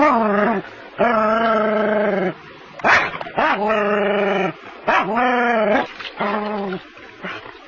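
Small white-and-black dog barking at a snake in long, drawn-out barks, five in all, some held over a second and some rising and falling in pitch. There is a short sharp sound about three seconds in.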